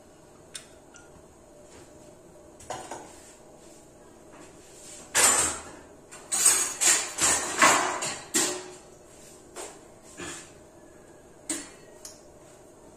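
Metal kitchen utensils and pots clattering: scattered clanks and knocks, with a loud run of several about five to eight and a half seconds in and a few single knocks after.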